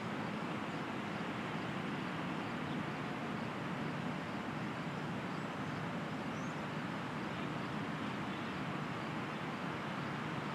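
Steady rushing outdoor noise with no speech, and a faint high chirp about six and a half seconds in.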